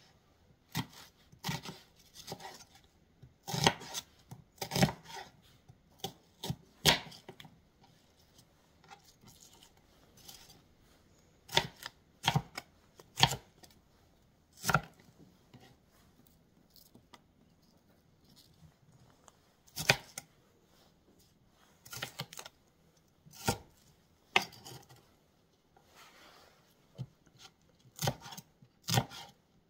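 Chef's knife slicing an onion on a plastic cutting board: sharp, irregular knocks of the blade hitting the board, in clusters with short pauses between.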